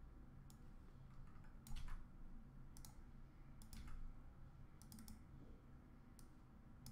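Faint, scattered clicks of a computer mouse and keyboard, about eight in all, each a second or so apart, over quiet room tone.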